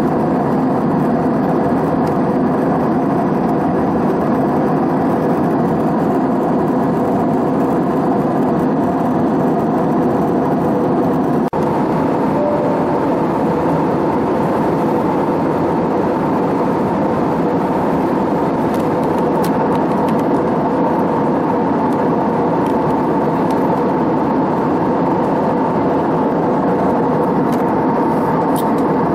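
Cabin noise of an Airbus A320 jet airliner in flight: the engines and the airflow over the fuselage make a loud, steady drone with a few faint hums in it, heard from a window seat. There is a short break in the sound about eleven seconds in.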